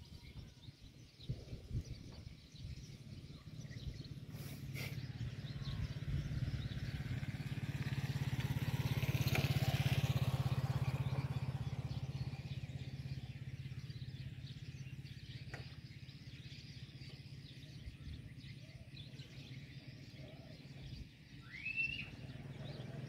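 A motor vehicle passes by: its low engine hum grows louder to a peak about ten seconds in, then fades away. A single short bird call, rising in pitch, comes near the end.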